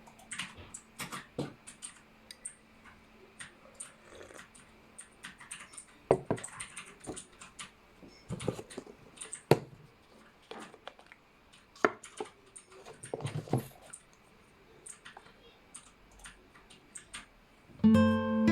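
Irregular light clicks and knocks, as of small household objects being handled and set down, some louder than others; music starts near the end.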